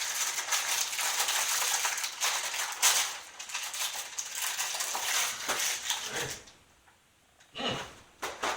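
Cereal packaging being opened, the plastic liner crinkling and rustling steadily for about six seconds, then stopping, with two short rustles near the end.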